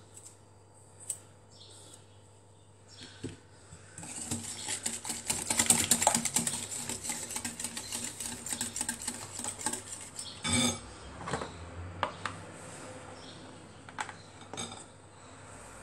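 Metal hand whisk beating an egg mixture in a glass bowl: a fast, dense clatter of wires against glass from about four seconds in until about ten, followed by a few separate clinks.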